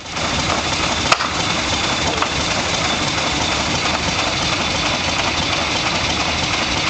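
Waterous steam fire engine running as a pumper, a loud steady hiss and rush of steam and machinery, with a sharp knock about a second in.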